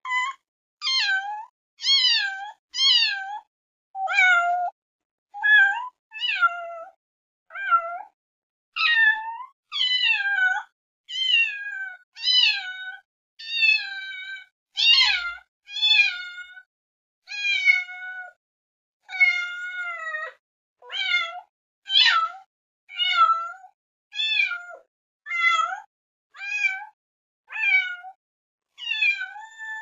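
Cat meowing over and over: a long run of short, separate meows, roughly one a second, with brief silences between them.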